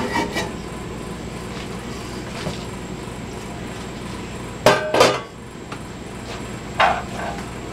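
Aluminum steam-canner dome lid clanking against the metal stovetop as it is lifted off and set down: two quick ringing clanks about five seconds in, then a lighter clank nearly two seconds later, over a steady hiss.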